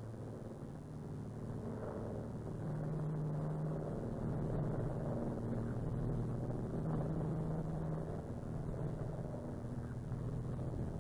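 Steady drone of a Douglas Dakota's twin radial engines, heard inside the cabin in flight.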